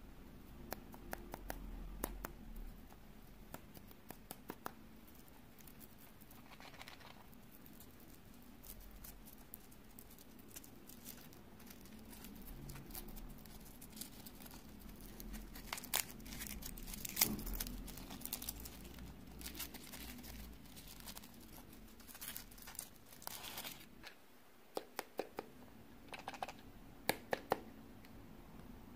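Foil wrapper being peeled off a chocolate egg by hand: crinkling and crackling foil with scattered sharp clicks, coming in several bursts with quieter stretches between.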